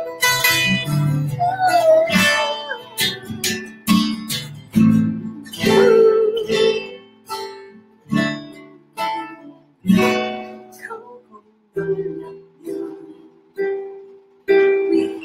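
Steel-string acoustic guitar playing chords without singing. Each strummed or picked chord rings out and fades, and the chords come further apart and lighter toward the end.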